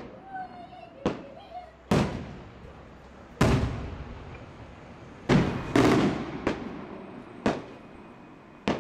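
Coloured aerial firework shells bursting overhead: a run of about nine sharp bangs at uneven intervals, some of them doubling up like multi-break shells. Each bang is followed by a rolling echo, and the loudest come about two, three and a half, and five to six seconds in.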